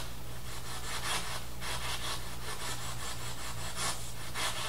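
Spirit box sweeping through radio frequencies: a rapid, evenly repeating chop of static hiss, a few bursts a second, over a steady low hum.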